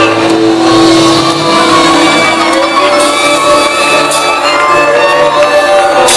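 A live band playing amplified music through a PA, with singers on stage and a long held note in the first couple of seconds; the crowd shouts along.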